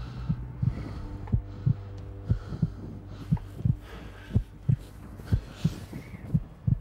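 Heartbeat sound effect: a fast, steady low thudding, about three thuds a second, over a faint hum.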